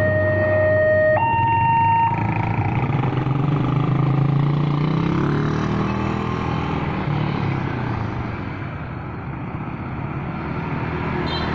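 Railway level-crossing warning siren alternating between a low and a high tone, which stops about two seconds in. A train then passes with a loud rumble and a low engine drone that rises and falls in pitch, easing off near the end.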